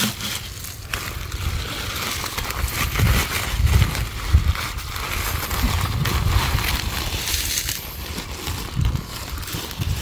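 Rustling and crunching of dense leafy weeds and papaya leaves underfoot and against the body while walking through them, with an uneven low rumble on the microphone that swells and dips.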